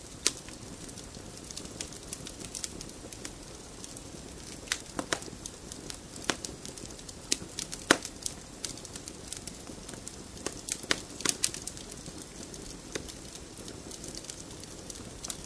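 Campfire crackling: a steady low hiss with irregular sharp pops and snaps.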